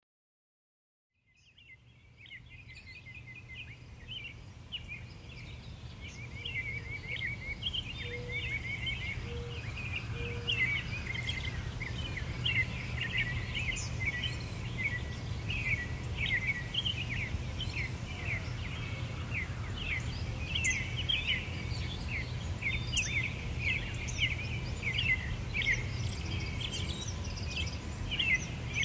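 Many small birds chirping and twittering in a dense, busy chorus that fades in after a second of silence and grows fuller, over a low steady rumble.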